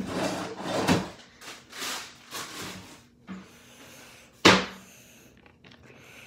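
Handling noises: a few short rustles and scrapes in the first three seconds, then one sharp knock about four and a half seconds in, like a lid, door or drawer shutting.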